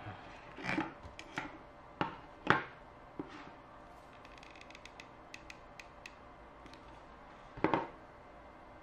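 Small objects being handled and set down on a wooden tabletop: a run of knocks and clatters over the first few seconds, the sharpest about two and a half seconds in, a few faint ticks after, and another short clatter near the end.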